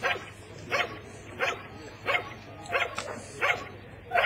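Protection-sport dog barking steadily at the blind: single sharp barks about every 0.7 s, six or seven of them. This is the bark-and-hold, in which the dog guards a helper hidden in the blind.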